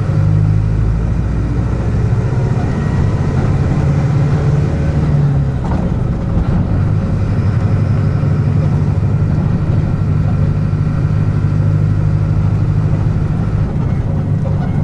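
Front-mounted diesel engine of a Mercedes-Benz OF-1722M bus running steadily under way, heard from inside the passenger cabin, with a brief change in its note about six seconds in.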